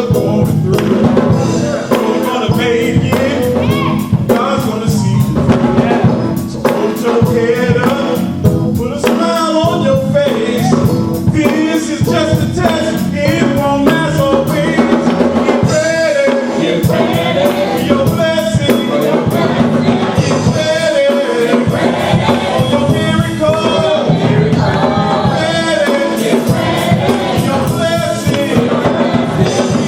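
Live gospel music: voices singing over a band with drums and a steady beat.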